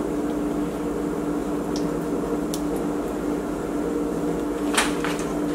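Steady low electrical hum of a running appliance in the room, with a few faint clicks of a metal spoon against a plastic cup of strawberry glaze, the strongest near the end.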